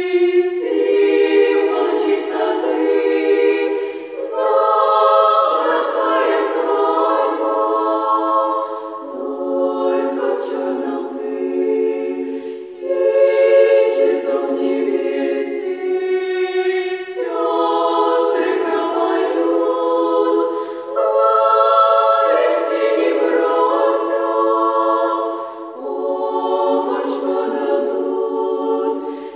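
Women's choir of about a dozen high voices singing a slow song a cappella in several parts, held chords changing every few seconds with brief dips between phrases.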